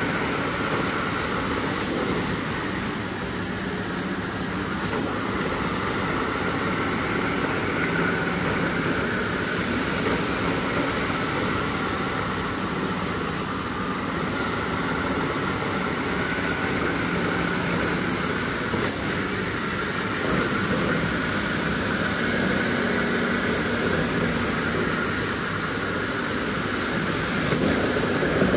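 A motorized rug-cleaning machine running steadily, a continuous mechanical hum with a noisy wash over it.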